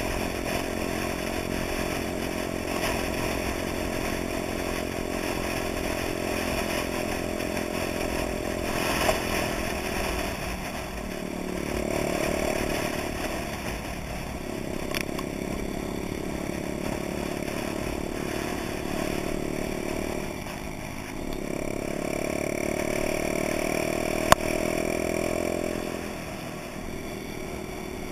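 Honda Dax's small four-stroke single-cylinder engine running on the move, its note dipping and climbing again several times. A sharp click about 24 seconds in.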